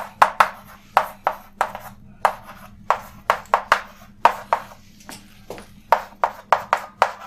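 Chalk writing on a blackboard: an irregular run of sharp taps and short scratches, several each second, as letters are formed.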